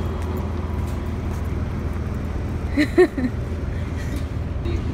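Steady low motor rumble. A brief voice sound, like a short laugh, comes about three seconds in.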